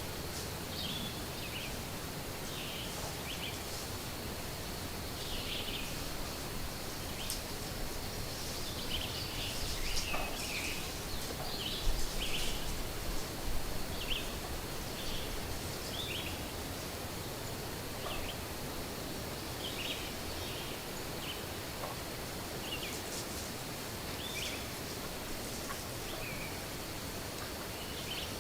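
Woodland songbirds chirping in short repeated calls over a faint steady high tone, with a spell of leaf rustling and a few sharp knocks about ten to fourteen seconds in.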